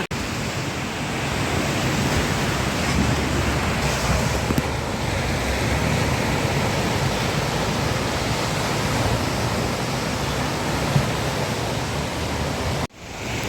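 Steady rush of sea surf on the beach, mixed with wind on the microphone. The sound drops out briefly near the end.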